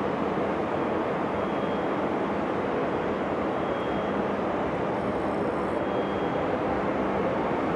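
Steady rumble of a metro train running in the tunnel, heard from an underground platform, with a brief high hiss about five seconds in.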